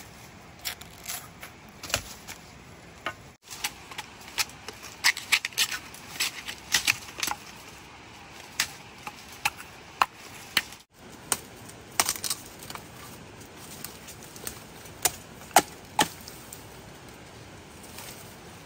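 Irregular sharp snaps and cracks of plant stems or wood being broken or cut by hand, sometimes several in quick succession.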